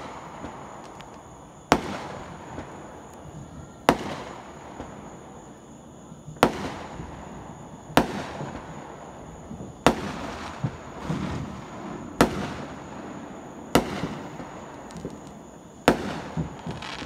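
Aerial fireworks going off: eight sharp bangs, roughly one every two seconds, each followed by a noisy tail, with smaller pops between the later ones.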